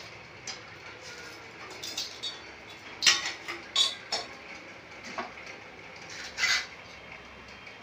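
Scattered light clinks and clatters of metal utensils being handled, about eight separate knocks with brief ringing, the loudest about three seconds in and another near the end.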